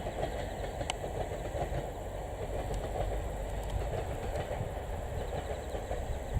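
A train of old-type passenger coaches hauled by an ED75 electric locomotive running past, a steady rumble of wheels on the rails.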